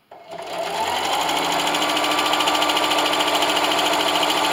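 Electric sewing machine running a straight stitch through layered fabric and polyester batting: the motor starts just after the beginning, speeds up over about a second, then runs at a steady fast stitching pace.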